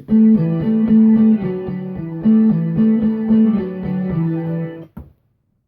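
A hand-sliced music sample with a plucked guitar melody over a rhythmic low pulse, triggered from Maschine pads. It stops abruptly about five seconds in.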